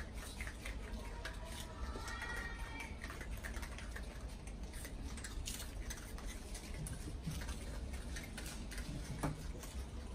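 Ring-tailed lemurs eating lettuce leaves: many small crunches, rustles and clicks of chewing and handling greens, over a steady low hum. A short pitched call comes about two seconds in.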